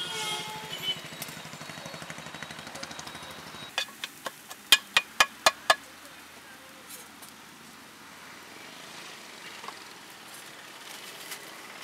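A quick run of about eight sharp metal clanks, roughly four a second, from a cooking utensil striking metal cookware at a street-food stove, each with a short ring.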